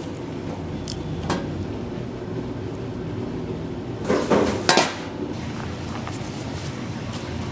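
Steady hum of a commercial kitchen, with a couple of light clicks about a second in and a short burst of clattering kitchenware, several sharp knocks, about four seconds in.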